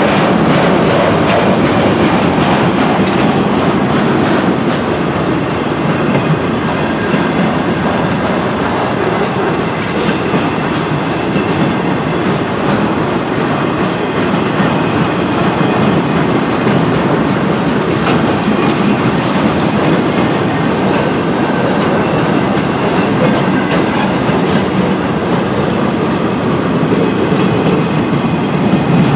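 Freight train's cars rolling steadily past, a continuous wheel-on-rail rumble with a repeating clickety-clack of wheels over rail joints.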